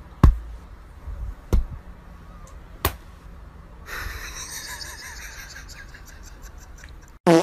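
Three soft thumps about a second and a half apart, then a rustle of hands and a cat's paw on a bedsheet. A brief pitched sound is cut off at the very end.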